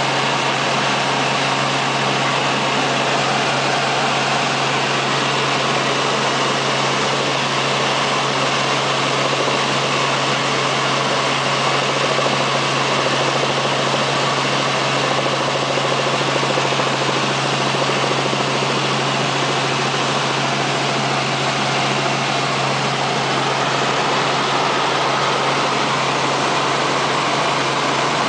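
Helicopter's steady engine and rotor drone: a constant low hum under an even hiss, unchanging throughout.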